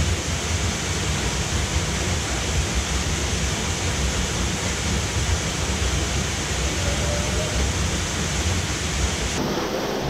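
Steady rushing of a waterfall splashing onto rocks close by, with a strong low rumble under it.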